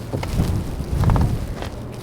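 Strong gusting wind buffeting the binaural microphones, a low, surging rumble that swells and drops.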